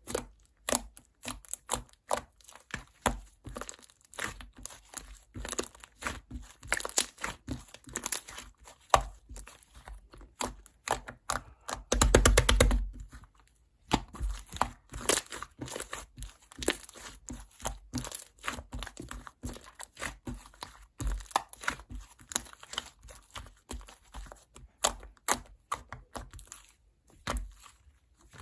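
White chewy slime being squished and stretched by hand, giving a steady stream of sticky clicks and pops. About twelve seconds in comes a denser run of rapid crackling lasting about a second.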